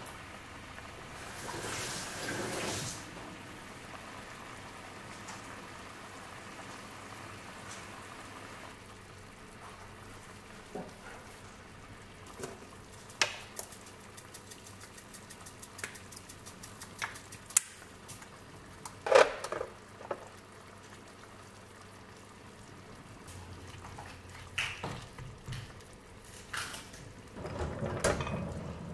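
Butter sauce simmering softly in a pan on a gas burner, with scattered light clicks and taps of a measuring spoon against the pan as spices are added. Near the end a wooden spoon stirs the sauce, scraping and knocking on the pan.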